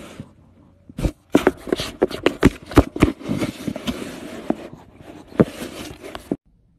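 A cat licking and rubbing its face against a phone held right at its face, its tongue, nose and fur scraping on the microphone in irregular clicks and rubs. The sounds start about a second in and cut off suddenly near the end.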